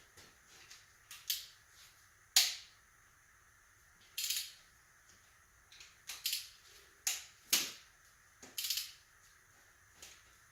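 A series of sharp, irregular clicks and clacks of hand tools and engine parts being handled while the bottom end of an LS V8 is taken apart; the loudest knock comes about two and a half seconds in.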